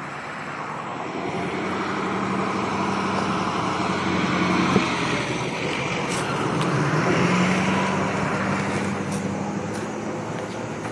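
Self-propelled rail maintenance machines rolling past on the track, their engines humming; the sound swells as one machine goes by about halfway through and again as the next follows, with the engine note dipping briefly between them. A few sharp metallic clicks sound in the second half.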